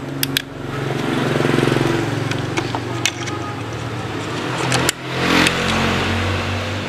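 A motorcycle engine running, its note swelling and easing off twice. A few sharp plastic clicks come with it as an LED headlight bulb is worked into its socket.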